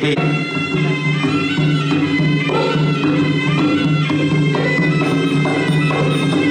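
Traditional Khmer boxing ring music: a reedy wind instrument, the sralai, playing a melody in held notes that change about every half second over a steady low drone.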